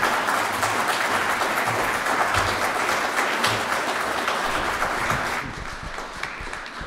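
Audience applauding, dying away about five and a half seconds in.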